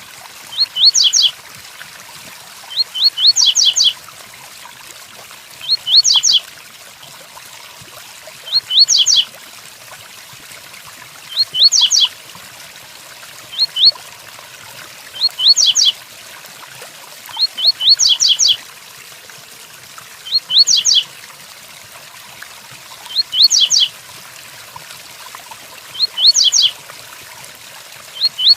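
A double-collared seedeater (coleiro) repeating its short 'tui-tuí' song phrase, a quick cluster of two to five sharp, high notes, about every two to three seconds. A steady rain hiss runs beneath it.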